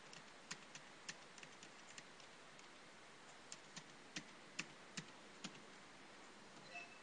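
A computer keyboard being typed on: about a dozen faint, irregular key clicks with short pauses between them.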